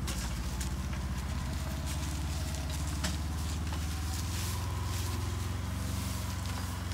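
Engine of a Polaris side-by-side UTV running steadily at low speed while it pulls a round hay bale in a bale unroller, with faint crackling of dry hay and leaves.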